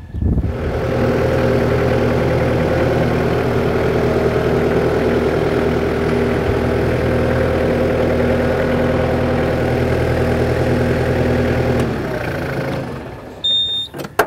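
New Holland Boomer 50 compact tractor's diesel engine running steadily as the tractor creeps forward in low range and four-wheel drive, then dropping away about twelve seconds in. A short high tone and a sharp click come just before the end.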